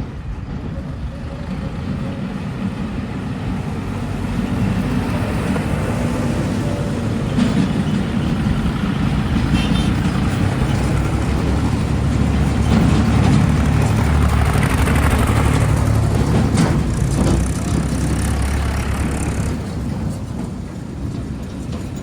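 Heavy diesel machinery engine running under load, growing louder through the middle and easing off near the end.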